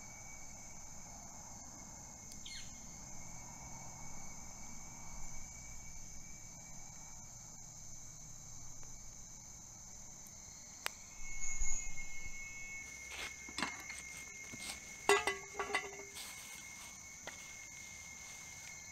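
Steady chorus of crickets and other insects: a high-pitched drone with a second, lower steady tone. From about the middle on, a series of sharp clicks and knocks sounds over it.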